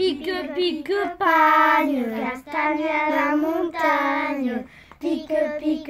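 A child singing a melody, mostly long held notes with a slight waver, in phrases broken by short pauses.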